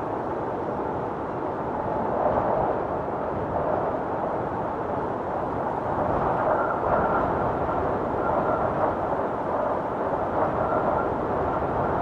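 Howling blizzard wind blowing hard and steadily. About halfway through, a faint high whistle starts coming and going over it.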